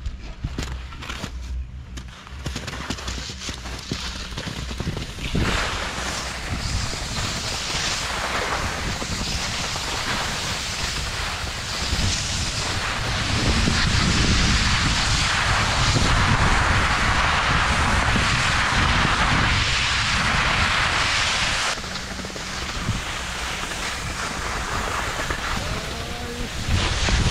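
Skis sliding and scraping over snow, with wind rushing across the camera microphone as the skier goes downhill. It grows louder about five seconds in, is loudest through the middle, and eases off shortly before the end.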